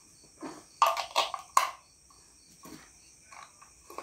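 Sharp plastic clicks and knocks of AA batteries being handled and fitted into a small LED video light's battery compartment, a cluster of loud ones between about one and one and a half seconds in, then a few softer ones. Crickets chirp steadily in the background.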